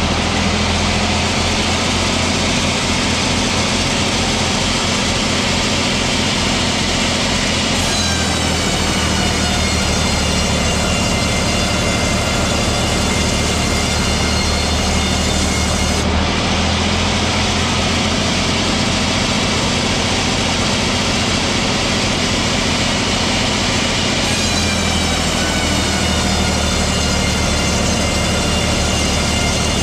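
Sawmill machinery running loudly and steadily with a low hum and a whine, its sound changing about every eight seconds.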